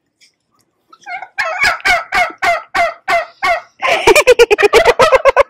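Domestic turkeys calling. After a quiet first second comes a series of separate calls about four a second, then a faster, louder run of gobbling near the end.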